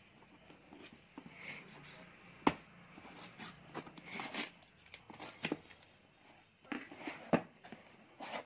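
Cardboard shipping box being cut and pried open along its packing tape: scattered scrapes and rustles of tape and cardboard with sharp clicks, two of them louder, about two and a half and seven seconds in. Near the end a paper invoice sheet rustles as it is handled.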